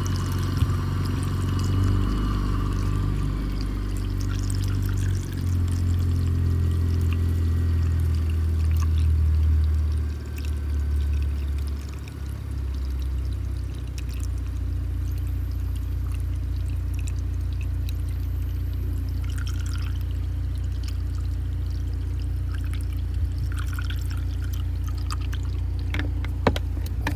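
A half-and-half mix of Dexcool coolant and distilled water pouring from an upturned plastic bottle into the coolant fill neck, refilling the cooling system after a radiator replacement. A steady low rumble runs underneath, and there are a few sharp clicks near the end.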